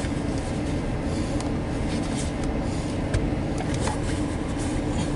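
Steady hum and rush inside a car's cabin, the engine idling with the air conditioning running.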